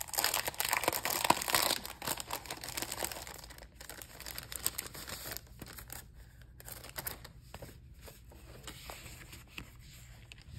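Clear plastic wrapping crinkling as it is pulled open, loudest in the first three seconds or so. Softer rustling of paper cards being handled follows.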